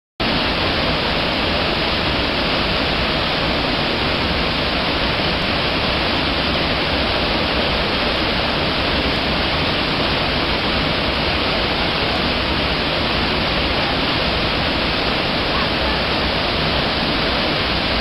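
Waterfall rushing steadily, its water plunging in two white cascades over rock into a pool.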